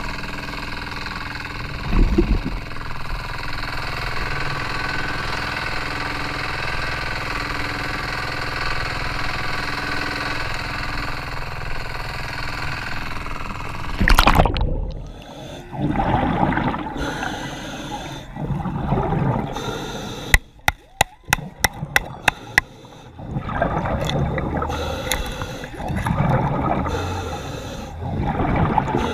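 A motor running steadily. About halfway through the sound changes abruptly to water bubbling and sloshing in swells every couple of seconds, with a quick string of sharp clicks in the middle.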